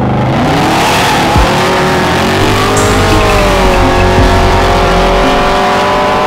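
A car engine held at high revs with a dense hiss of tyre squeal, as in a burnout; the engine pitch sags slightly midway and climbs again near the end.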